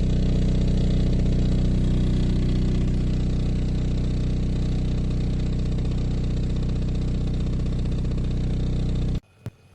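Steady mechanical hum of a running motor, cutting off abruptly near the end, followed by a faint click.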